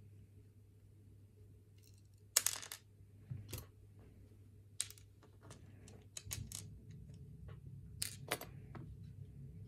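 Scattered metallic clicks and clinks from a pin-tumbler challenge lock and lock-picking tools being handled, with a sharp clink and brief rattle about two and a half seconds in and a few more clicks later.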